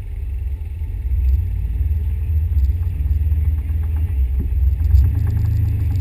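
Low, steady vehicle rumble.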